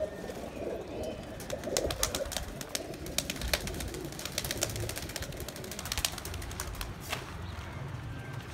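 Pakistani high flyer pigeons cooing, with a rapid run of sharp wing claps and flapping between about one and a half and seven seconds in as birds take off from and land on the loft frame.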